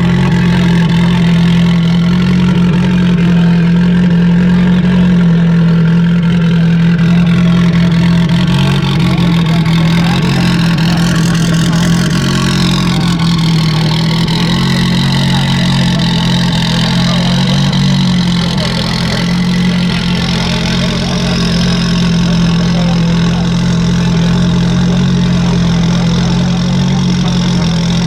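Renault 5 Turbo 2's turbocharged four-cylinder engine idling steadily. A fainter high whine rises and then falls about halfway through.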